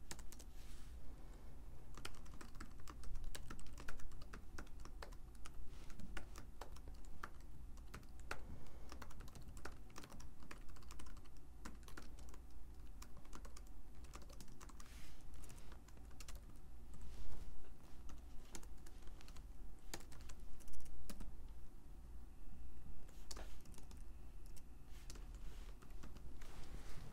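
Typing on a computer keyboard: a steady run of quick, irregular keystrokes, thinning briefly near the end.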